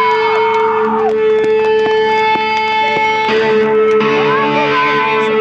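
Amplified electric guitar through distortion and effects pedals, holding a droning note while swooping glides rise and fall over it.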